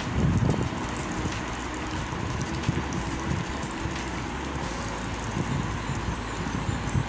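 Cashews, almonds and raisins frying in ghee in a small pan on a gas stove burner: a steady hiss over a low rumble. A few bumps in the first half second as the pan is moved.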